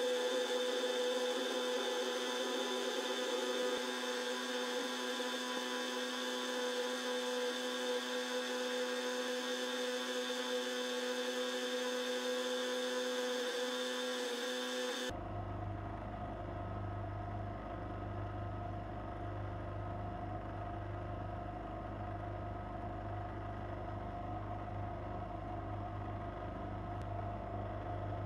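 Bench grinder fitted with a semi-hard buffing wheel, its motor running with a steady whine. About halfway the sound changes abruptly to a lower, steady hum.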